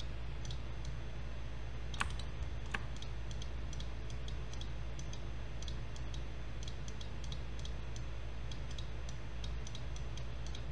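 Computer mouse clicking repeatedly in light, irregular clicks, with two louder clicks about two seconds in, over a steady low hum.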